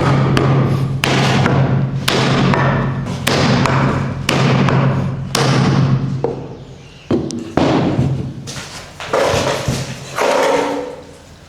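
Repeated heavy wooden knocks on a cricket bat, about one a second and unevenly spaced, as it is struck with a mallet during repair and reworking. A steady low hum runs under the first two-thirds and stops.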